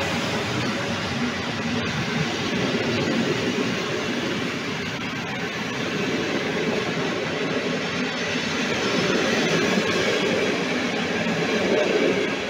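PKP Intercity passenger coaches rolling past along the track, a steady running noise of steel wheels on the rails.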